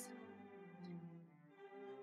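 Faint instrumental background music with slow, held notes.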